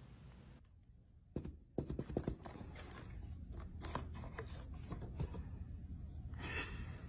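Faint, irregular scratching and scraping on a cardboard box: a cat clawing at the cardboard from inside. It starts about a second and a half in.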